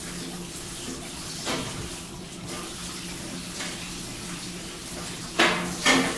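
Wooden toy kitchen pieces being handled at a toy sink: a few sharp knocks, two loud ones close together near the end, over a steady hiss.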